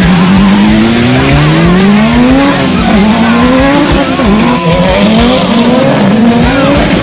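Drag race car engine at full throttle down the strip: its pitch climbs steadily, then drops back and climbs again several times as it shifts up through the gears.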